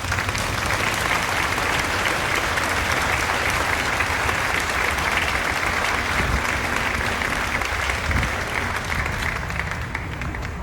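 A crowd applauding with dense, steady clapping that starts suddenly and thins a little near the end.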